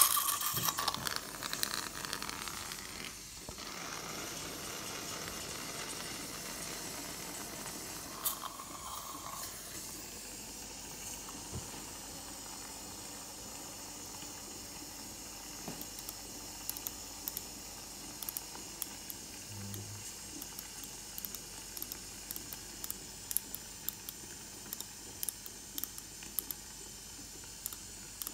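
Dental suction hissing steadily, louder in the first few seconds. From about halfway on there are small, sharp clicks.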